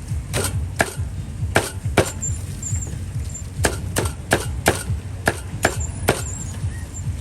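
A cleaver chopping pork on a wooden chopping block: about a dozen sharp chops, coming in quick runs of two to four with short pauses between.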